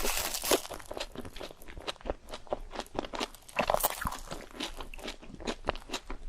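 Close-miked eating: crunching bites and chewing of crispy fried food, a rapid run of crackles with a louder crunch nearly four seconds in.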